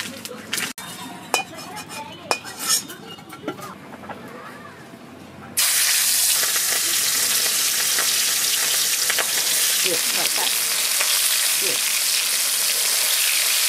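Scattered light clicks and knocks. About five and a half seconds in, a loud, steady sizzle starts suddenly: boiled eggs frying in hot oil in a metal kadhai, stirred with a spatula.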